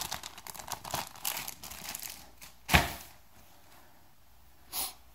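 A clear plastic zip-top bag holding paper manuals crinkling as it is handled, then a single thump about two and a half seconds in as it is put down, and one brief rustle near the end.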